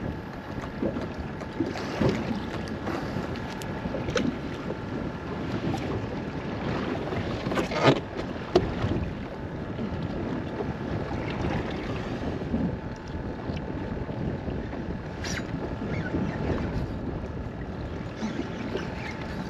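Choppy water slapping against the hull of a small center-console fishing boat, with wind buffeting the microphone. Two sharp knocks about eight seconds in.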